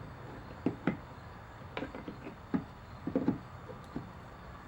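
Scattered light clicks and taps of hands working a fishing line onto the metal bracket in a pickup truck's door-handle opening, about six short knocks, some in quick pairs.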